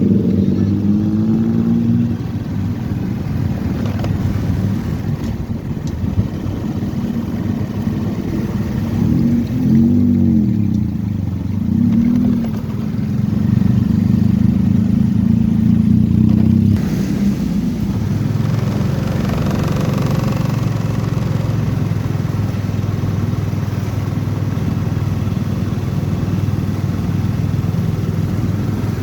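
Motorcycle engine running steadily while riding, with the engine note rising and falling briefly about ten to twelve seconds in.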